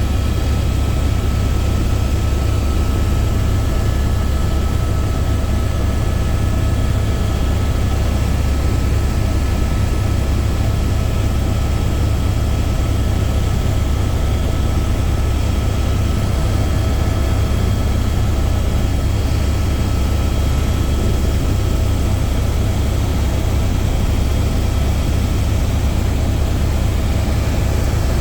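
Helicopter in flight: a steady, loud low drone of the rotor and engine, with a few faint steady whining tones above it.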